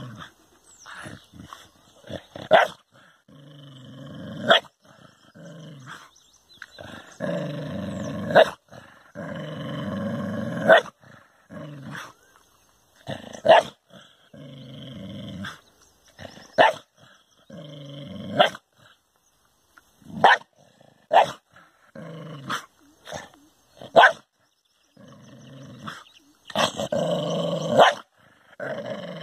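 A dog growling in long stretches, broken by sharp barks every second or two.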